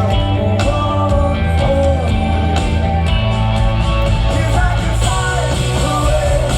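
Rock band playing live, with a lead vocal sung over steady bass, guitars and drums.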